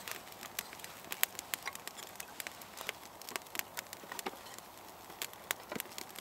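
Small campfire of fatwood and slightly damp split kindling crackling, with irregular sharp pops and snaps.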